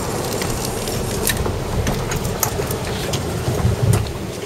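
Steady low rumble of a fishing boat's engine mixed with wind and sea noise, with a few faint ticks scattered through it.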